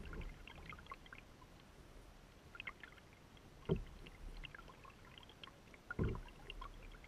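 Water slapping and lapping against the bow of a paddled canoe or kayak on choppy lake water: two low slaps against the hull, a little over two seconds apart in the second half, with small splashes and drips trickling between them.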